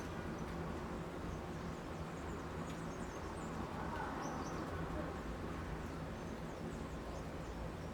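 City street ambience: a steady low rumble of traffic, with faint distant voices and small bird chirps scattered through it.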